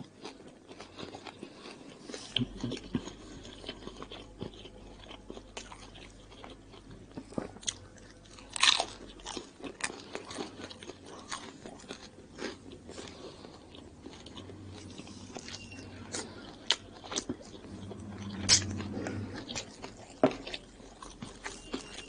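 Close-up eating sounds: a man biting into and chewing baked oriental pizza, a run of small crunches and chewing with a few louder, sharper crunches, one near the middle and two near the end.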